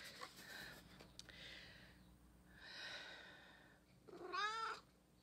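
A cat close to the microphone: faint breathy sounds, then one short meow about four seconds in.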